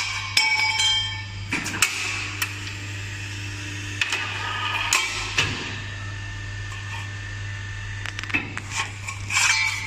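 Hydraulic square-tube cutting machine at work: its pump motor hums steadily while the ram drives the blade down through the steel tube, with scattered sharp metallic clanks and clinks that ring briefly. The clanks come in clusters near the start, around the middle, and again near the end.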